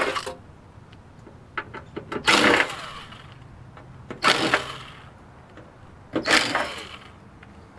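Cordless drill/driver with a Torx bit driving screws out of a steel equipment chassis, running in three short bursts about two seconds apart. A few light clicks come just before the first burst.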